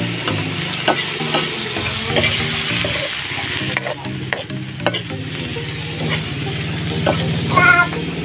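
Chopped kibit meat sizzling as it fries in oil in a metal wok, stirred and scraped with a metal ladle that clicks against the pan.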